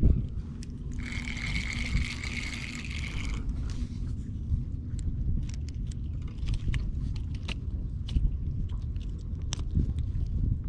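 Spinning fishing reel cranked for about two and a half seconds starting about a second in, a steady whirring with a thin whine, reeling in a perch. Then scattered small clicks and scrapes of the fish being handled and unhooked, over a steady low rumble.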